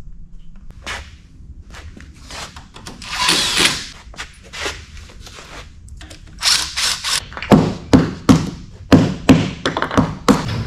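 A series of knocks and thuds, with a brief hiss about three seconds in, then several loud sharp knocks in quick succession over the last four seconds.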